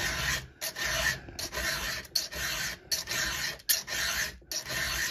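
A fresh round chainsaw file rasping across the steel cutter tooth of a saw chain in steady hand strokes, about seven in a row at a little faster than one a second. The new file bites and cuts cleanly instead of just scraping.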